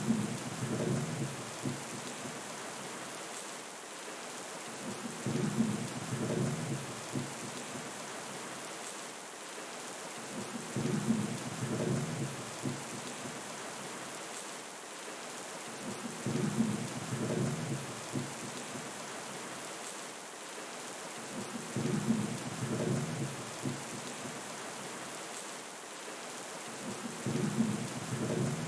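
Steady rain, with a low rumble of thunder repeating at even intervals about every five and a half seconds.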